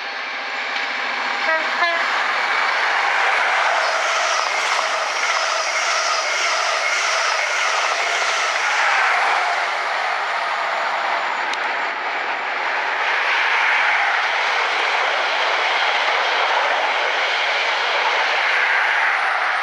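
A passenger train sounds its horn in the first couple of seconds, then passes at speed with a long, steady rush of wheel and rail noise.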